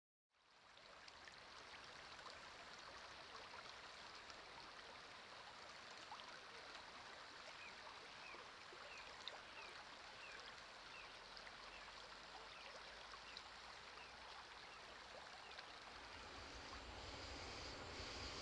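Faint steady rush of shallow river water running over a gravel bed, with a bird calling in short falling notes about twice a second midway. A low rumble starts to rise near the end.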